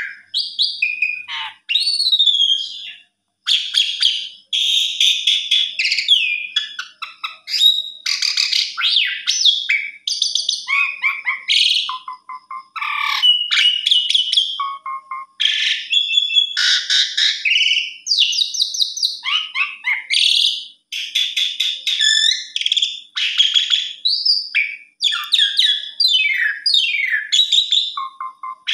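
Javan pied starling (jalak suren) singing continuously: a long, varied run of loud whistles, rising and falling glides and fast chattering trills, broken by only brief pauses.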